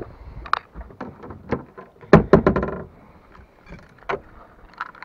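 Knocks and clatter of gear being handled in an aluminium fishing boat, with a quick rattling run of knocks about two seconds in.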